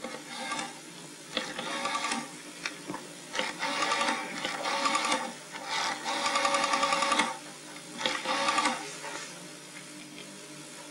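Rotary telephone dial being wound round and released digit after digit, each release spinning back with a burst of rapid, even clicking. About seven digits are dialed, the last near the end.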